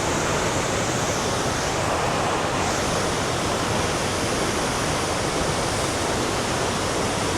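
Cumberland Falls, a large river waterfall, crashing steadily as a dense, unbroken roar of falling water.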